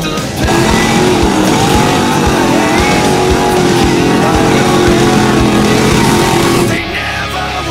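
Mud racing truck's engine running hard at high revs for several seconds, its pitch wavering slightly, then dropping off near the end.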